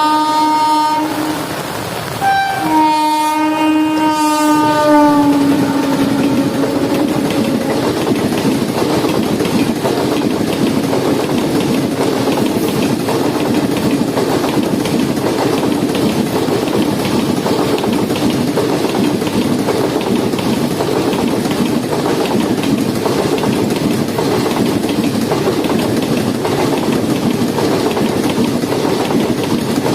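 Locomotive horn sounding, a short break, then a second long blast that falls in pitch as the train passes at speed. After that comes the steady rumble and clickety-clack of the coaches running by.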